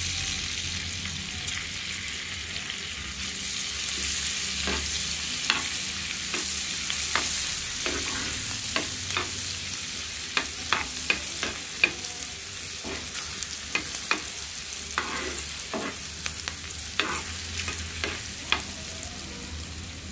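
Green chillies and sliced ginger sizzling in hot oil and butter for a tempering: a steady hiss with frequent sharp pops and spatters, thicker in the second half.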